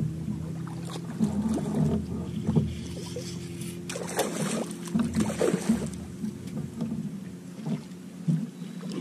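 Steady low hum on a bass boat, with irregular splashing and knocks strongest in the middle, as a hooked bass is fought to the side of the boat.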